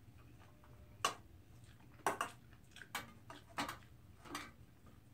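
A metal spoon clinking against a brass rice bowl and metal dishes as food is scooped: about half a dozen short, light clinks, the first about a second in.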